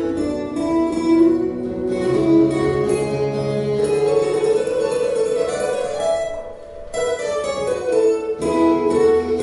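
Two acoustic guitars playing an instrumental duet, a picked melody over strummed and plucked chords. The playing softens briefly about two-thirds of the way through, then comes back in fuller.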